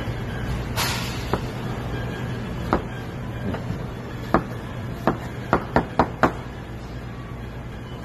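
Chef's knife chopping through peeled pineapple and knocking on a cutting board: a few spaced chops, then a quick run of about five chops about five seconds in.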